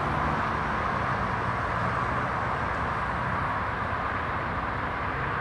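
BNSF diesel-electric freight locomotive approaching at the head of a train of open hopper cars, its engine giving a steady low drone under an even noise of the moving train.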